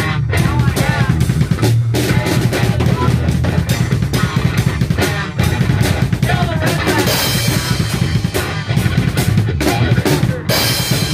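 Loud music driven by a drum kit, with the bass drum and snare prominent.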